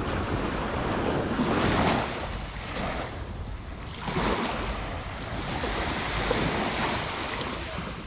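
Small waves breaking and washing up a sandy shore, swelling and falling back every two to three seconds, over a steady low rumble of wind on the microphone.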